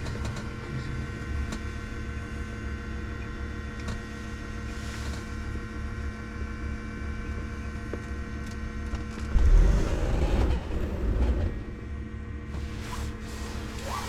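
Light-aircraft cockpit noise as heard through the intercom: a steady low engine drone under an electrical hum and whine. About nine and a half seconds in, a louder rumble swells for about two seconds and then settles back.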